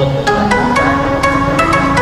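Background music: a melody of short stepping notes over light percussion clicks.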